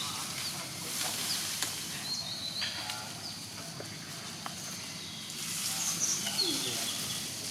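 Outdoor background noise with scattered high, thin whistled animal calls, some held briefly and stepping in pitch.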